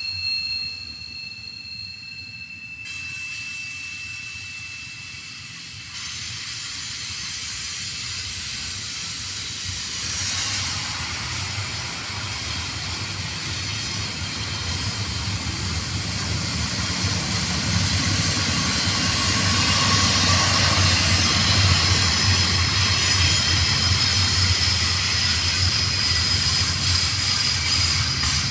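Double-stack container train rolling past: steady rumble and hiss of wheels on rail, with a high wheel squeal that stops about three seconds in. The rolling noise grows louder through the middle, where a fainter high squeal comes and goes.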